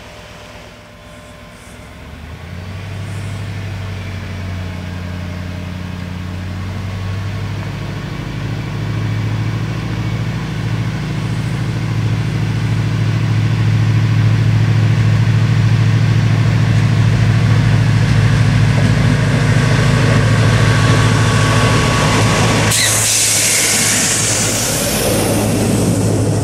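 Arriva SA106 diesel railbus pulling away. Its engine note starts about two seconds in and grows steadily louder as it accelerates toward the listener. Near the end a sudden rush of wheel and air noise comes in as it passes close by.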